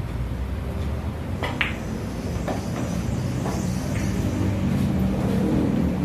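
A pool shot: one sharp click of the cue ball about a second and a half in, then three fainter knocks of balls over the next few seconds, over a steady low rumble.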